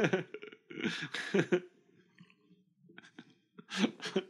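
Short, breathy vocal sounds from a person close to the microphone, in a few brief bursts with near-silent gaps between.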